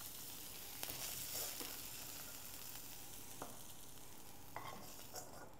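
Bacon lardons sizzling in their rendered fat in a wok, a faint steady hiss, with a few light clicks of a metal spoon as pieces are lifted out.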